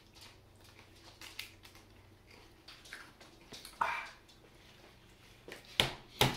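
Faint chewing and mouth noises from eating a spicy tortilla chip, with a short loud vocal outburst about four seconds in and two sharp knocks near the end.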